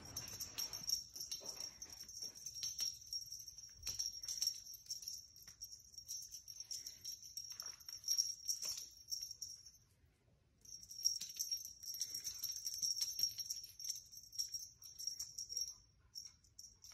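A small bell on a feather wand toy jingling as the toy is shaken, with the plastic sheet scuffing under a kitten's paws as it pounces. The jingling stops for about half a second around ten seconds in.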